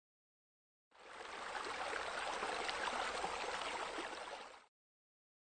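Running, splashing water like a small waterfall pouring into a pool. It fades in about a second in and fades out near the end.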